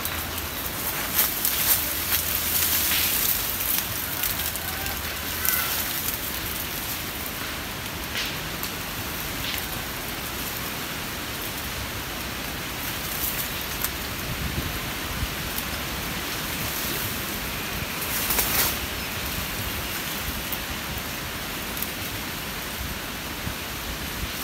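Steady, rain-like hiss of forest ambience, with brief rustles of leaves and branches now and then and a louder rustle late on.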